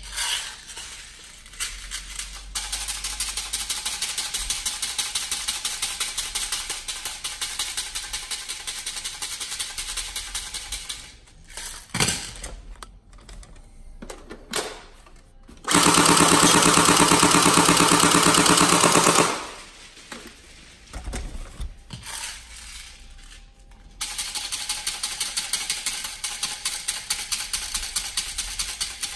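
Tokyo Marui AA12 electric airsoft shotgun, fitted with an upgrade spring and a high-torque motor, test-fired on full auto: long strings of rapid, even rattling from the gearbox cycling. A louder, buzzier burst comes about halfway through.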